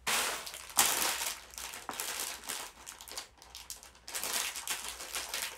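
Plastic bags of Lego pieces crinkling and rustling as they are rummaged through to find a piece, in uneven bursts with a louder crackle about a second in and a short lull past the middle.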